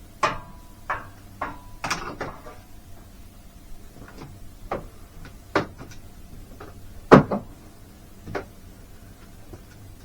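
Scattered knocks and clicks of a boat steering cable and its steering box being handled, a few with a brief ring, the loudest knock about seven seconds in.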